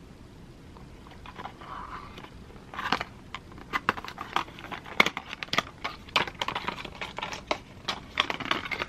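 A small paperboard advent calendar box being opened by hand: card flaps and packaging rustling and crinkling, with many quick, irregular clicks. It is fairly quiet at first, and the handling noise starts about three seconds in.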